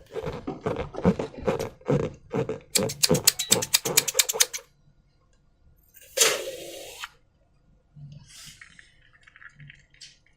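Slime being squeezed and worked by hand: a run of wet squelches and clicks, speeding up into rapid crackling about three seconds in. About six seconds in there is a short hiss, followed by faint crackles.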